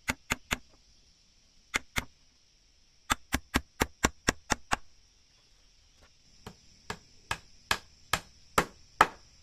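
Repeated sharp strikes of a hand tool on wood, in bursts: three, then two, then a quick run of about nine at around five a second, then about eight slower blows that grow louder toward the end.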